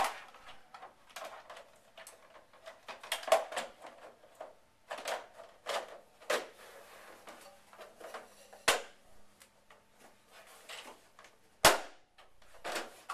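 Conveyor side panel being fitted back into its slot and pressed down into the channel: a series of irregular knocks, clicks and scrapes, a few of them sharp.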